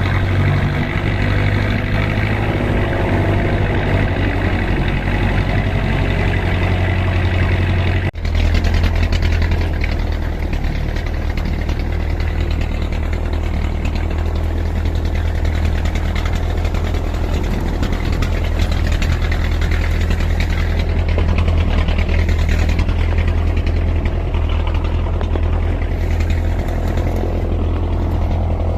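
Off-road vehicle engine running steadily at a low, even speed, with a brief break about eight seconds in.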